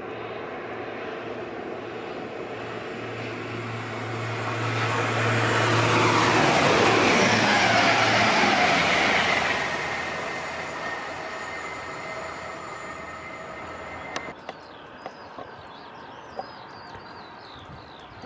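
A train passing at speed. Its noise builds over a few seconds, peaks in the middle with the pitch falling as it goes by, then fades away. Faint birdsong follows near the end.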